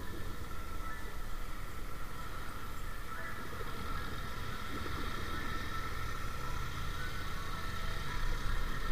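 Motorcycle being ridden at steady road speed: engine running under wind rumble on the microphone, with a faint steady whine above it.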